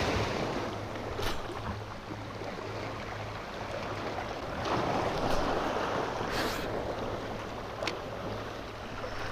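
Waves washing onto the beach, a steady rush that swells twice, with a few faint clicks.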